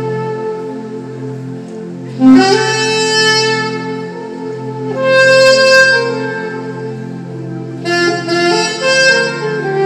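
Saxophone playing a slow melody live, long held notes that swell and change pitch every few seconds, over a soft sustained low backing.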